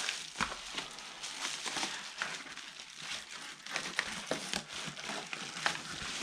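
A black paper mailer bag being torn and crumpled by hand as a box is worked out of it: a continuous run of crinkling and crackling with many small crackles.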